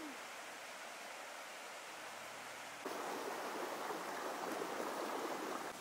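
A faint steady rush, then about halfway through a louder, even sound of clear shallow river water running over stones, which cuts off suddenly just before the end.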